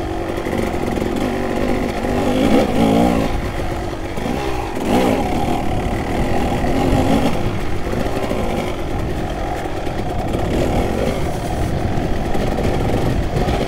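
Kawasaki KX250 dirt bike's single-cylinder engine under way, its pitch rising and falling with the throttle, with a few quick revs about two and a half and five seconds in.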